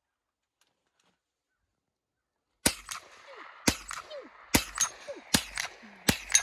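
Rifle shots fired in a steady string, five of them a little under a second apart, starting about two and a half seconds in. Several are followed by a brief falling tone.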